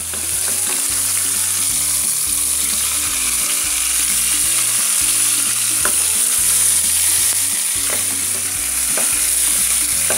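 Beef shank (ossobuco) searing in hot oil in an aluminium pot: a loud, steady sizzle with spattering. A few light clicks come as a fork turns the pieces against the pot.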